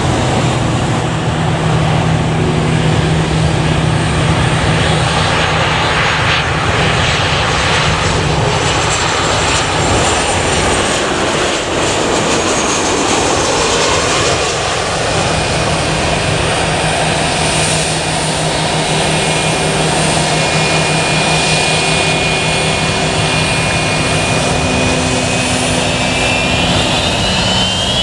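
Boeing 737-800's CFM56-7B turbofan engines on final approach, flare and touchdown, a steady loud jet roar with a whine rising near the end.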